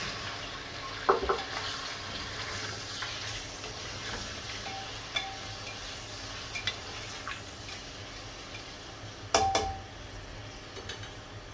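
Raw mutton pieces sizzling in hot oil in an aluminium pressure cooker as they are tipped in and stirred with a spatula, with occasional clicks of the spatula against the pot. About two-thirds of the way through, a louder double knock rings briefly off the pot.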